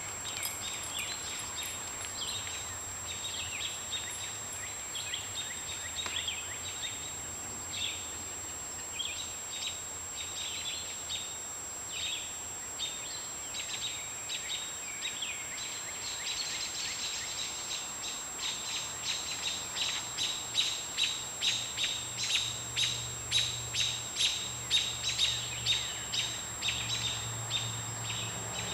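Songbirds chirping and calling, with a quick series of sharp, evenly repeated chirps growing louder in the last third. A steady high-pitched whine runs underneath.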